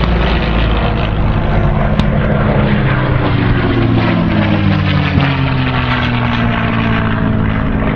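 A piston-engined Second World War fighter passing low on a ground-attack run, its V-12 engine running loud and steady, the pitch slowly falling as it draws away. A single sharp crack about two seconds in.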